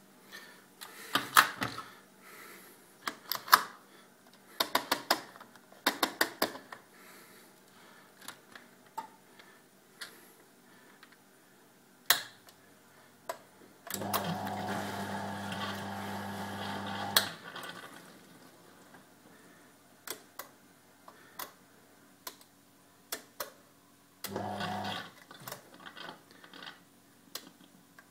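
Washing machine being worked: scattered clicks and knocks from its controls and body, and an electric motor or valve humming steadily for about three seconds mid-way, then again briefly near the end.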